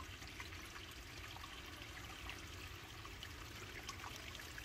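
Faint, steady trickling of water with a few light, scattered ticks.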